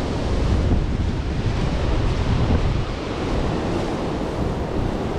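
Strong wind blowing across the microphone: a steady, loud rush of noise heaviest in the low end, with no distinct events.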